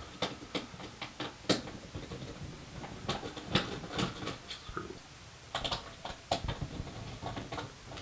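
Irregular clicks and light taps of small screws being undone with a screwdriver and handled inside a metal PC case.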